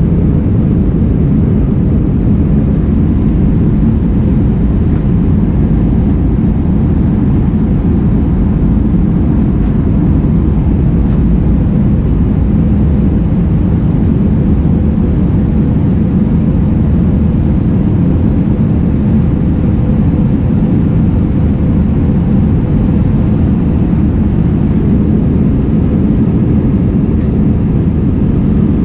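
Steady in-cabin noise of an Airbus A319 in flight: engines and rushing airflow make an even, low rumble with no changes.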